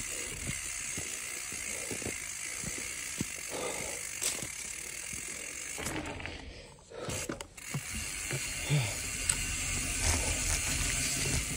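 Mountain bike rolling down a dirt trail: tyre and rattle noise with the rear hub's freewheel ratchet clicking as the rider coasts. It goes briefly quieter about seven seconds in.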